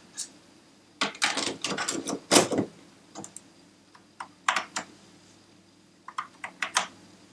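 Keys of the Amiga 1000's keyboard being pressed: irregular groups of sharp clicks, the busiest stretch from about one second to nearly three seconds in, then a few shorter groups.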